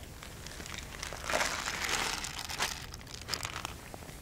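Plastic bag of dry cat food crinkling and rustling in the hand, with a denser burst of rustling lasting about a second and a half, starting about a second in, and scattered small clicks.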